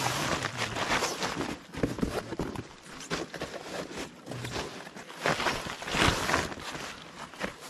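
Rustling of a foil-faced foam sleeping mat and nylon tent fabric as hands spread and press the mat flat on the tent floor, in irregular swells, loudest about six seconds in.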